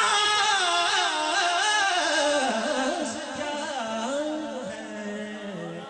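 A man singing a naat into a microphone, unaccompanied: one long drawn-out phrase without clear words that winds slowly downward in pitch and fades towards the end.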